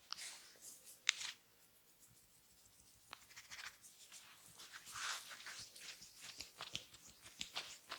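Fingers scratching and rubbing through hair and over the scalp during a head massage. It makes faint, scattered rustles and soft clicks, sparse at first and busier in the second half.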